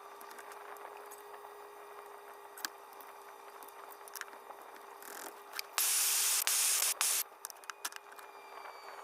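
A loud burst of hissing spray lasting about a second and a half, just past the middle, with a shorter faint hiss just before it and small clicks and taps around it.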